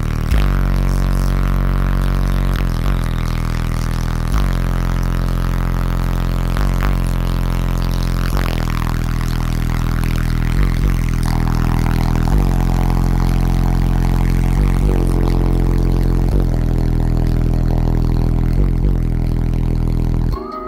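Bass-heavy music played loud through twelve 15-inch Sundown ZV5 subwoofers on three Crescendo 8K amplifiers, heard inside the truck's cab. It is a deep, sustained bass line whose notes change about every two seconds, and it cuts off just before the end.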